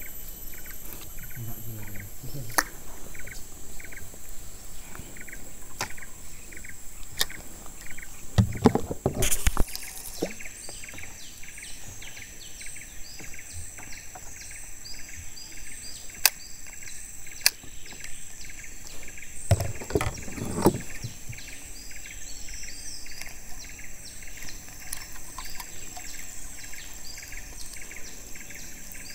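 Steady, evenly repeating high-pitched chirping from riverside wildlife, with two short, loud rustling noises, one about a third of the way in and one about two thirds in.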